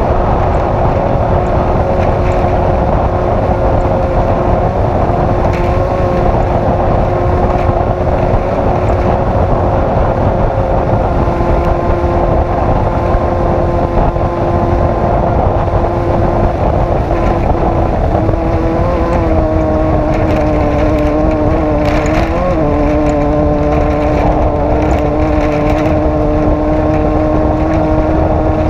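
Off-road race vehicle's engine running hard at steady revs over a dense din of wind and driveline noise, with scattered knocks. About two-thirds of the way through the engine note drops, wavers, and settles lower.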